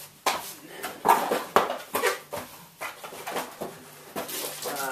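Rummaging through a motherboard's cardboard box and its packaging in search of data cables: irregular rustling, clicks and knocks of things being handled and moved.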